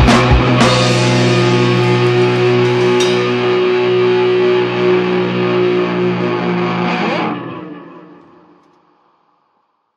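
Gothic rock band's final chord played live: the drum hits stop less than a second in and the electric guitar chord is held and rings on. About seven seconds in it breaks off and decays to silence.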